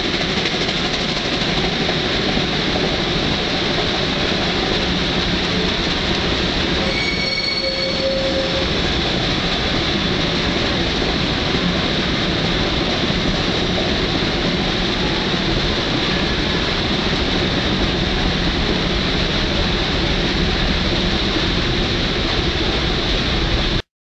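Shay geared steam locomotives working upgrade, heard from a passenger car close behind: a loud, steady mix of exhaust and running gear. A brief high squeal comes about seven seconds in.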